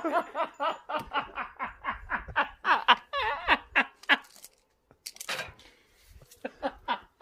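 A woman laughing hard in quick repeated bursts for about four seconds, then after a short break a few more breathy bursts of laughter.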